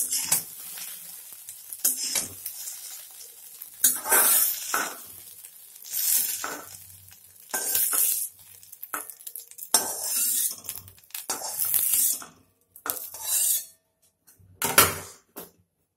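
Spatula scraping and knocking in a kadai (Indian wok) in irregular strokes every second or two, over hot oil sizzling after frying eggs. The sizzle dies away near the end, leaving only the scrapes.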